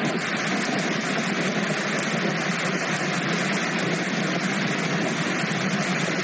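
Steady road and tyre noise of a car driving on a wet road in the rain, heard from inside the car.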